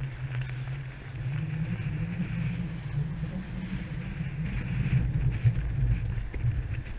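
Steady wind rumble buffeting the action camera's microphone, over the rush of ocean surf washing up the beach; a little louder about five seconds in.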